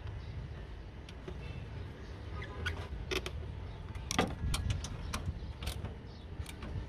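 Rubber air intake hose creaking as it is worked onto the air cleaner, with about half a dozen sharp clicks and taps from a hand tool on the hose fitting, over a steady low rumble.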